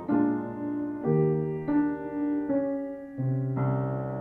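Upright piano played solo: a slow tune in held chords, a new chord or note struck roughly every second and left to ring.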